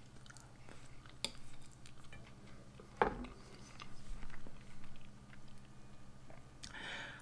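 Close-up mouth sounds of someone chewing a mouthful of stuffed pepper with a rice filling: soft wet chewing with small clicks, and a short sucking smack near the end as a finger is licked.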